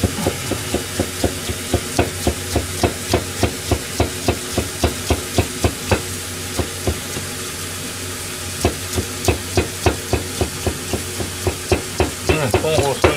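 Steel kitchen knife chopping cucumber into thin strips on a plastic cutting board: quick, regular knocks of the blade on the board, about three a second, with a pause of about two seconds midway.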